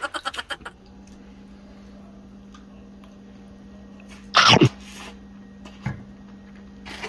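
A man sneezes once, loud and short, about four and a half seconds in. Just before, a short run of laughter ends, and a steady low hum runs underneath.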